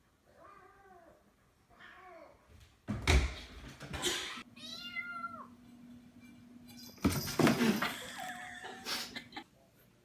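A cat meowing several times in short calls that rise and then fall in pitch. Two loud bursts of noise come about three and seven seconds in.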